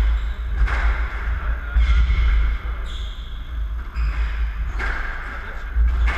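Squash rally: the ball cracks sharply off racquets and the court walls about five times, roughly one hit every second or so, with short squeaks of shoes on the wooden floor over a steady low rumble.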